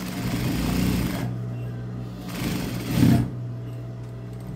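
Industrial sewing machine stitching in two short runs of about a second each, the second the louder, sewing a securing seam through the pocket layers. A steady low hum runs underneath.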